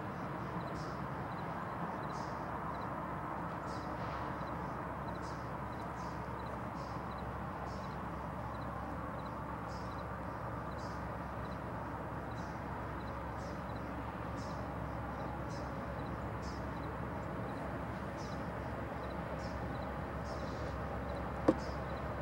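Approaching freight train's diesel locomotives, a low steady rumble. Over it a bird chirps high and short about once a second, and a single sharp click comes near the end.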